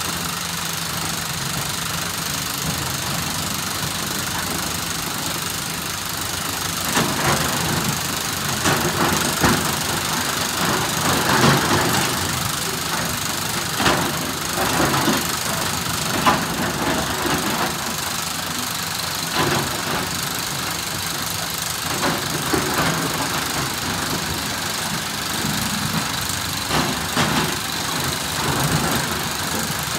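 SANY SY365H Pro excavator's diesel engine running steadily under work. From about seven seconds in, irregular sharp knocks and clatter of andesite stone being loaded cut through it.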